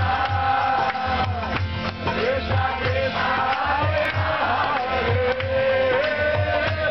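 Devotional kirtan music: a mridanga drum beats a steady rhythm about twice a second, with sharp hand-cymbal strokes, under a long held melody line that slides in pitch.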